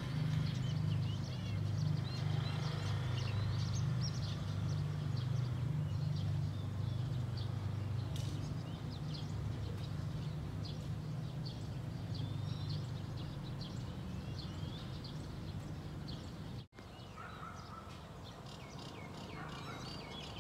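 Birds chirping and calling on and off over a steady low rumble.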